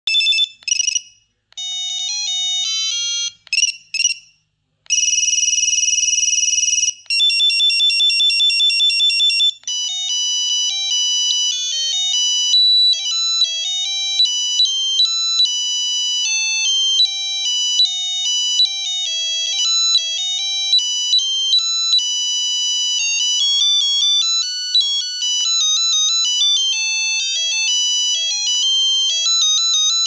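Preloaded electronic ringtones of an LG 1010 flip phone played one after another through its small speaker as the ringer list is scrolled. Short beeps and tune snippets come first, then a steady buzzing ring, then a fast trilling ring. From about ten seconds in, one long, busy multi-note ringtone melody plays.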